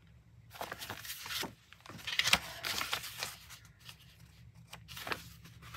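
Clear plastic zip-top bag and plastic sheet protectors rustling and crinkling as paper quilt patterns are handled and flipped through, in irregular crackles, loudest a little past two seconds in.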